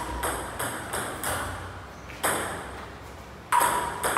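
Table tennis rally: a ping-pong ball clicking sharply off the bats and the table, several quick hits with uneven gaps. The louder hits come about two seconds in and again near the end.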